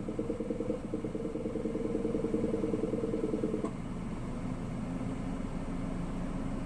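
Abnormal noise from a Honda N-BOX Custom (JF3) with the air conditioner running: a fast, pulsing buzz that stops abruptly about four seconds in, leaving a steadier, lower hum.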